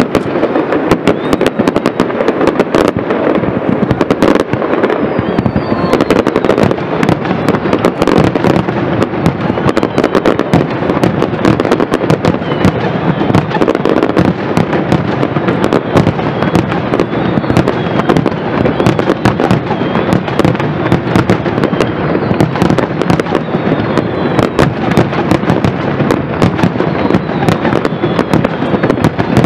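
Fireworks display in a dense barrage: many shells bursting and crackling in rapid succession with no pause, loud and continuous.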